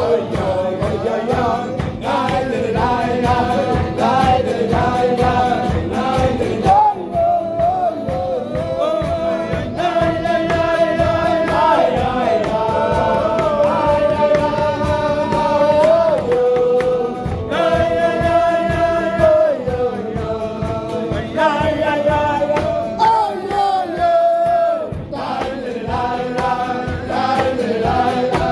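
A group of men singing a melody together, kumzits-style, with long held notes over a steady accompanying beat.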